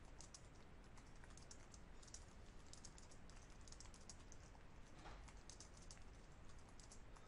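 Faint typing on a computer keyboard: quick, irregular runs of key clicks with short pauses between them.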